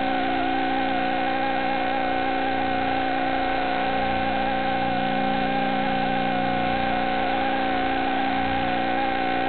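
Small toy quadcopter's electric motors and propellers, heard from its onboard camera, whining steadily in flight, the main pitch wavering slightly as the throttle shifts.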